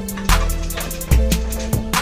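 Background music with a steady drum beat: a deep kick drum about every 0.8 s, crisp hi-hat-like ticks between the kicks, and held bass and keyboard notes.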